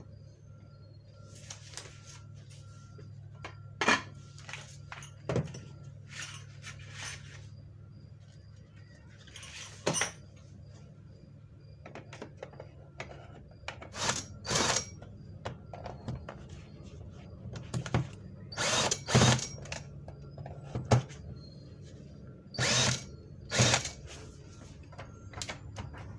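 Cordless drill/driver backing out the cover screws of a molded-case circuit breaker, running in a series of short bursts of a second or less with pauses between, over a steady low hum.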